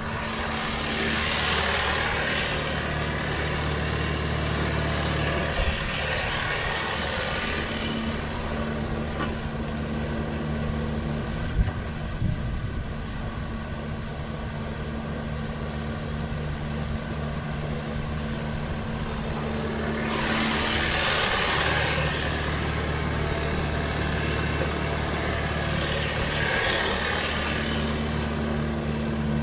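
Sany hydraulic excavator's diesel engine running steadily while digging, swelling four times into a louder hiss as it works. Two brief knocks stand out, about six and twelve seconds in.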